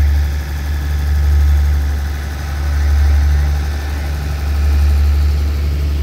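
Diesel power of a standing SRT passenger train idling: a steady, deep drone that swells and eases every second or two.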